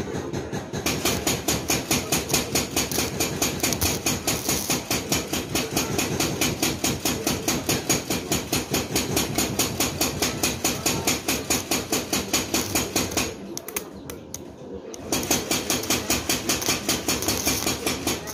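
Stick (arc) welding on a steel hammer head: the electrode arcing with a fast, even crackle. The arc breaks off for about a second and a half near the end, then is struck again.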